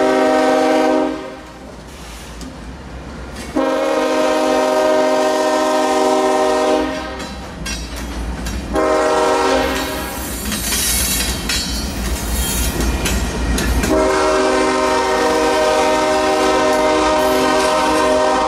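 Union Pacific diesel locomotive's multi-chime air horn sounding four blasts for a grade crossing: one ending about a second in, two more, then a long final blast near the end. Under the horn, a train of loaded coal hopper cars rolls by with a steady rumble and clickety-clack of wheels over rail joints.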